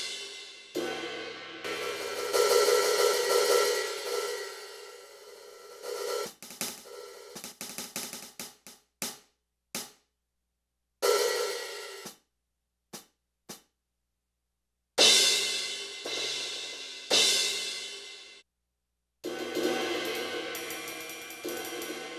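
NUX DM-210 electronic drum kit's sound module playing cymbal and drum sounds as the pads are struck: several cymbal crashes that ring and fade, a run of quick short drum strokes in the middle, and brief silent gaps between hits.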